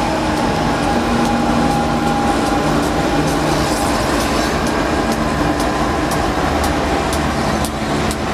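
The Indian Pacific's NR-class diesel-electric locomotive rolling slowly past at close range as the train pulls in, its engine running steadily.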